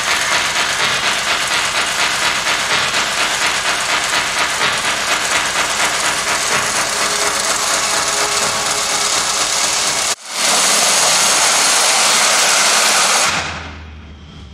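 Electronic noise soundscape of a light-and-sound art installation: a loud, dense hiss with a fast crackle. It cuts out for an instant about ten seconds in, comes back as a steadier hiss, and fades near the end to a low hum.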